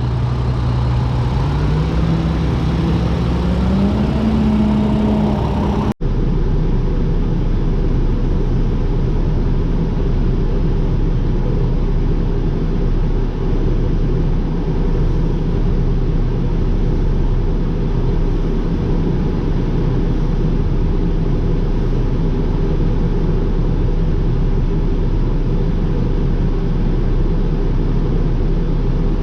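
Engine running, its pitch rising in steps over the first few seconds. After a sudden cut, a steady low engine drone.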